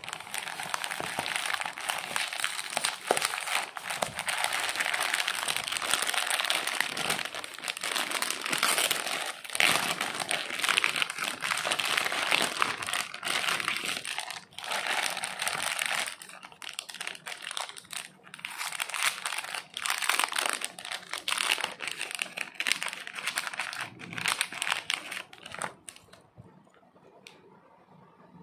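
Plastic packaging and bubble wrap crinkling and rustling as they are handled and pulled apart, a dense crackle with short pauses, dying away to quiet handling near the end.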